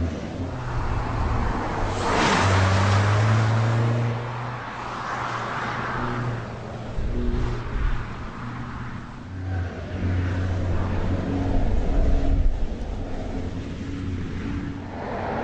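Car engine running at steady speeds, its note stepping between levels, with the rushing whoosh of the car passing by about two seconds in, again around five seconds in, and near the end.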